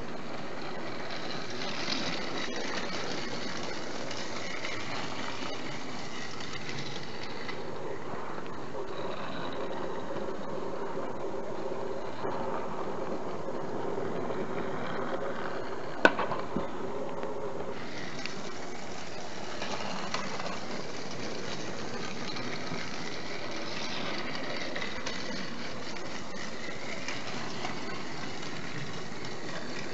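Battery-powered Trackmaster Revolution Thomas toy engine running along plastic track, its small motor and gears whirring steadily. The tone turns duller for several seconds in the middle, and there is a single sharp click about halfway through.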